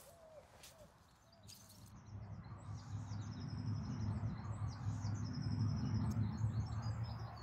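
Small birds singing, repeated short high trills, over a louder low rumble that builds from about two seconds in and eases off near the end.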